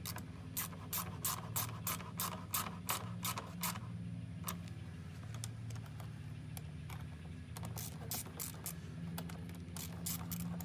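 Worm-drive hose clamp being tightened with a hand nut driver, giving a run of quick, even clicks at about three a second, then a pause and a second run of clicks near the end. A steady low hum sits underneath.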